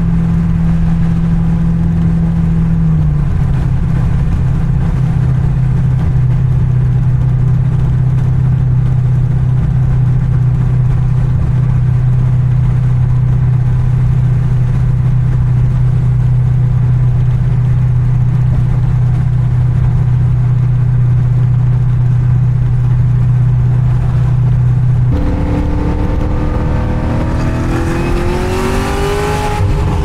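Cadillac CTS-V V8 drone from inside the cabin, cruising at highway speed with light throttle. The pitch drops a few seconds in as the revs fall, then holds steady. Near the end the drone gives way to a rising engine note as the car accelerates.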